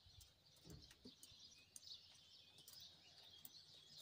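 Near silence: faint outdoor background noise with birds chirping faintly.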